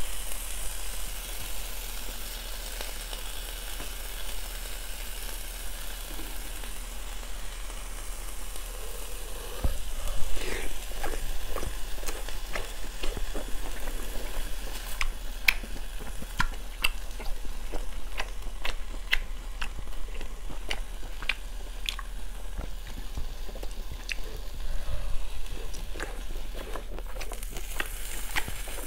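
Slices of beef sizzling steadily on a ridged grill pan over a mini brazier. From about ten seconds in, close chewing of the grilled beef, a run of sharp wet mouth clicks, plays over the continuing sizzle.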